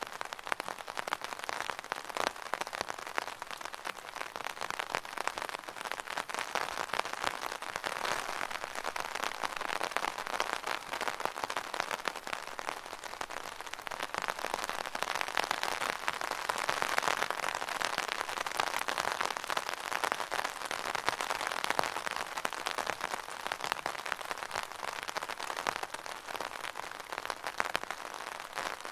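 Rain falling on an umbrella: a dense, steady patter of countless small drops, swelling a little louder around the middle.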